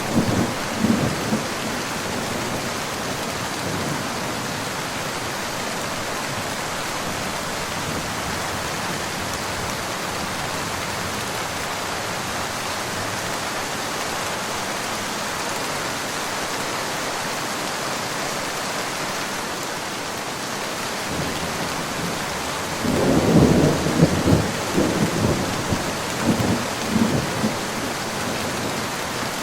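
Steady rain falling, with rolling thunder: a rumble fading out right at the start, then a louder rumble of several seconds about three-quarters of the way through.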